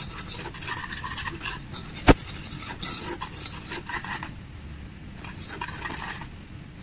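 A spoon stirring and scraping melting palm-sugar caramel around an aluminium saucepan in repeated strokes, with one sharp clink against the pan about two seconds in and a brief lull in the stirring past the middle.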